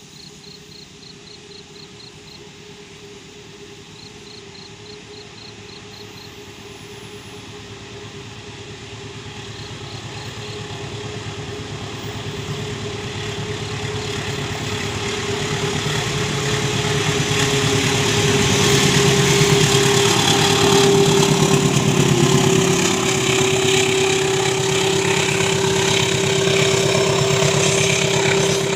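Diesel-hauled passenger train approaching and passing, growing steadily louder, with the locomotive's steady engine drone dropping slightly in pitch as it goes by, then the rumble and clatter of the carriages' wheels on the rails. At first, a few short runs of high insect chirps sound over the distant train.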